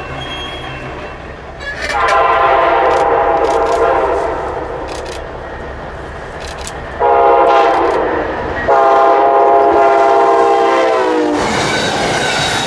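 Amtrak Siemens Charger locomotive horn sounding three blasts as the passenger train approaches: a long blast, a shorter one, and another long one that drops in pitch as the locomotive passes. This is followed by the steady rolling rumble and wheel clatter of the stainless-steel coaches going by.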